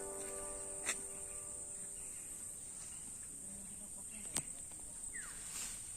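Steady high-pitched insect chorus, a continuous shrill drone. Two sharp clicks sound about a second in and again past four seconds, and a short falling chirp comes near the end.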